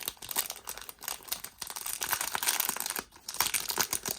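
Packaging crinkling and rustling as it is handled and unwrapped, a dense run of irregular crackles.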